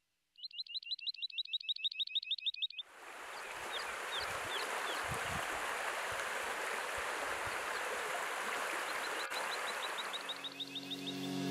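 A small bird sings a fast run of repeated high chirps, about ten a second, which stops about three seconds in as the steady rush of a shallow stream running over stones takes over, with a few faint bird chirps above it. Music starts to fade in near the end.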